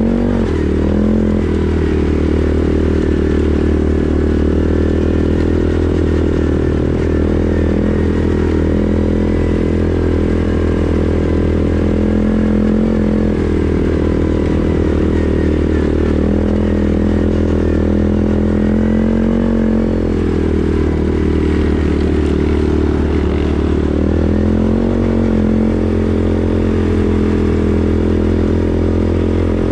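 CFMoto 450S ATV engine running under way at a fairly steady speed, its pitch rising and falling a little with the throttle a few times.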